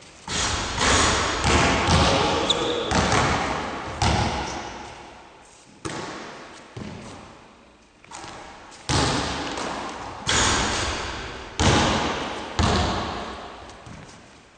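Basketballs bouncing on the wooden court and striking the basket during shooting drills. The thuds come about once a second, each followed by the hall's long echo.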